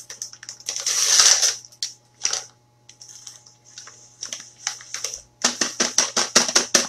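Dry cake-mix packaging being handled and opened. A rustling burst comes about a second in, then a few lighter rustles. From about five and a half seconds there is a quick run of crackling clicks as paper or plastic packaging is crinkled and torn.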